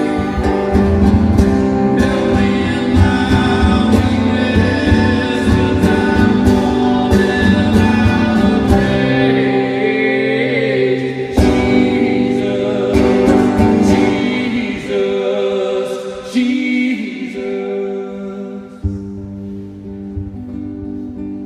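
Live music: a man singing over strummed acoustic guitar. The music thins out and gets quieter over the last few seconds.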